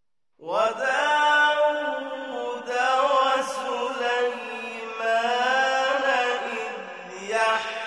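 Solo male voice reciting the Quran in a slow, melodic chant with long ornamented held notes. It starts about half a second in, after silence.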